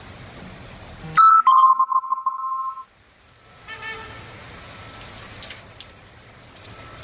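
Rain falling steadily on a street. About a second in, a loud steady tone cuts over it for about a second and a half, and a shorter, fainter tone comes near four seconds.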